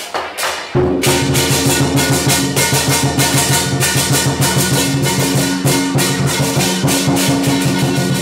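Lion dance percussion: drum with clashing cymbals and gong. It pauses briefly at the start, then a fast, steady beat of about four to five strokes a second starts again about a second in.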